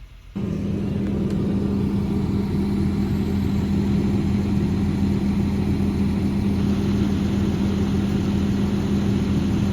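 A vehicle engine running steadily with a constant low hum, starting abruptly about a third of a second in.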